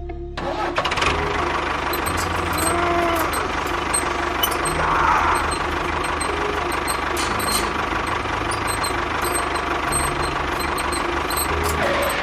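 A small engine running steadily with a fast low pulse, typical of a mini tractor's engine.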